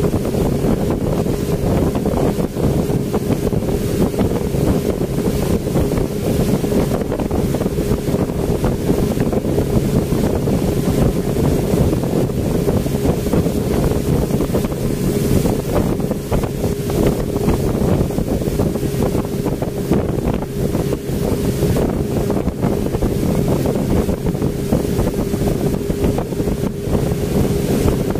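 Speedboat's engine running steadily at speed, a constant hum, with wind buffeting the microphone and water rushing past the hull.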